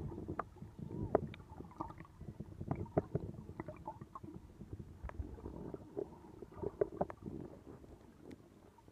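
Muffled underwater noise heard through a submerged camera: a low churning rumble of moving water with scattered short clicks and pops.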